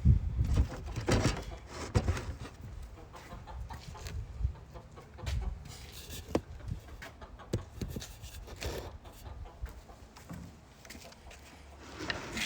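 Chickens clucking now and then, among scattered short knocks and clicks from plastic bucket and feeder parts being handled.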